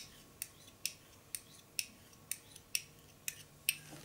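A pair of hollow 12 mm metal circular knitting needles tapped tip against tip, making sharp metallic clicks about twice a second.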